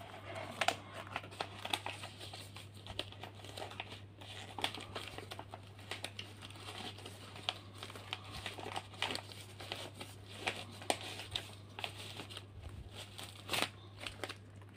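Clear plastic packaging being handled and crinkled in the hands, an irregular run of crackles and rustles.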